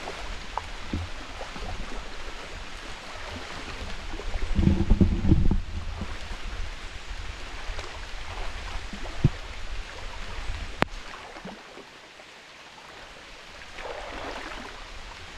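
Water sloshing and splashing as people wade through shin-deep floodwater, with a louder surge of splashing about four to five seconds in. A single sharp click comes near the eleven-second mark.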